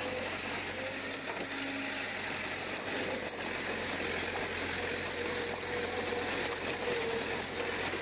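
Komatsu crawler bulldozer's diesel engine running steadily under work, with a wavering hum over it.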